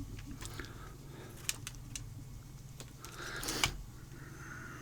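Lock picking tools working in the keyway of an ABUS 83AL-45 padlock: scattered small metallic clicks and scrapes at an irregular pace, with one sharper click about three and a half seconds in.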